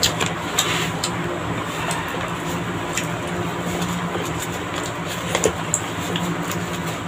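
Soft scattered clicks and smacks of eating rice and chicken by hand, over a steady low mechanical hum.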